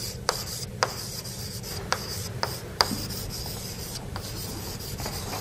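Chalk writing on a blackboard: a steady dry scratching, punctuated by several sharp taps as the chalk strikes the board.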